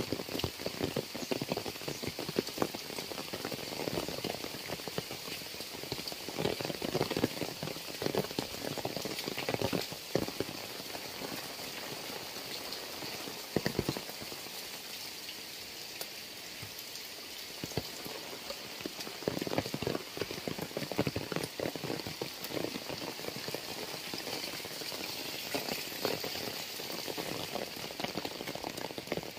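Heavy rain falling on wet paved ground and the foliage around it, a steady hiss with dense, irregular splashing of drops. Louder spells of splattering come and go.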